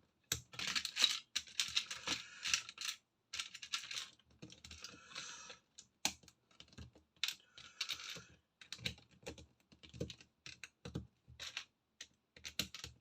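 Plastic LEGO pieces clicking and rattling as they are handled and pressed together, with short bursts of rummaging among loose pieces and many separate sharp clicks.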